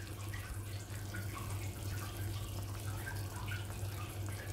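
Water running with scattered small drips or splashes, over a steady low hum.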